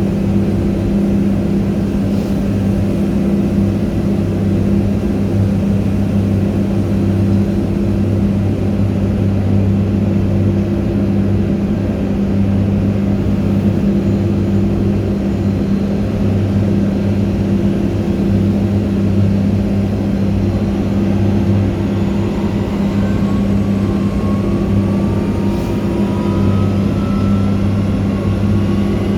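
Airbus A300-600 during pushback: a loud, steady low drone of machinery with a constant hum. In the last several seconds a thin whine slowly rises in pitch over the drone.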